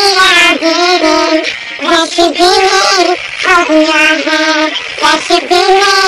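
Girls singing a tune loudly in sustained phrases with short breaks between them.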